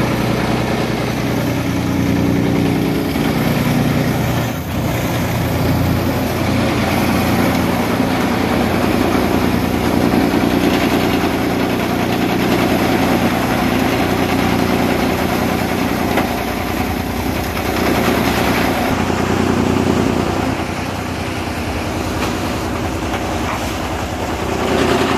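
Napier grass chipping machine running steadily, a loud machine drone whose load swells and eases now and then as grass is fed into it.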